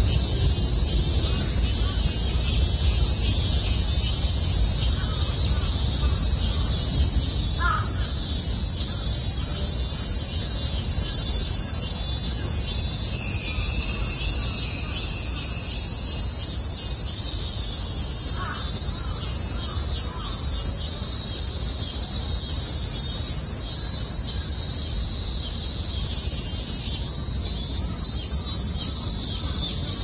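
Dense chorus of cicadas, a steady high-pitched drone, with a pulsing call joining in the latter half. A crow caws twice, about eight seconds in and again a little after eighteen seconds.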